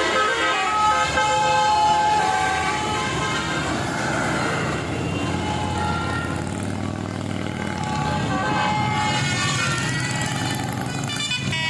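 Basuri musical air horns on a vehicle playing a tune of held notes that step from pitch to pitch, over the running engine. The horn melody fades into the engine noise around the middle and comes back strongly near the end.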